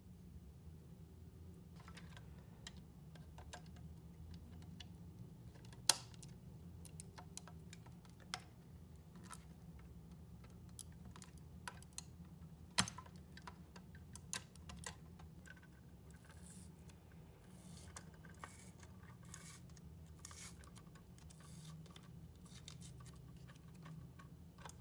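Scattered light clicks and taps of small parts being handled, with two sharper clicks about six and thirteen seconds in and a quicker run of clicks later on, over a faint steady low hum.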